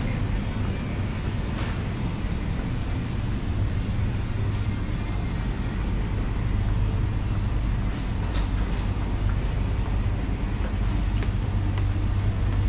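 Steady low background rumble with a few faint clicks and clatters.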